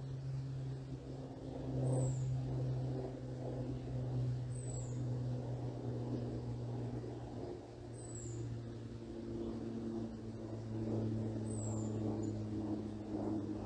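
An airplane droning overhead, a steady low hum whose pitch shifts slightly partway through. A small bird gives a thin, high, falling chirp four times, about every three to four seconds.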